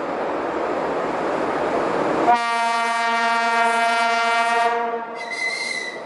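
Approaching ST44 ('Gagarin') diesel locomotives running with a steady rumble, then sounding their horn: a long low blast starting about two seconds in and lasting around two and a half seconds, followed by a short higher-pitched tone near the end.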